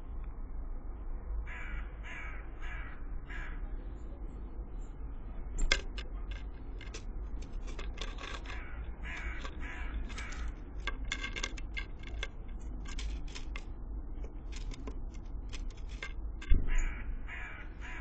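A blue tit pecking at sunflower seeds on a wooden feeder tray: quick runs of sharp taps and clicks, with a thump on the feeder about six seconds in and another near the end. Harsh crow-like cawing calls repeat in short series in the background.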